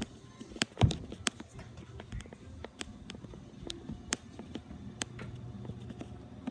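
Footsteps going down carpeted stairs and across a carpeted floor: a run of soft irregular thuds and taps, with one louder thump just under a second in.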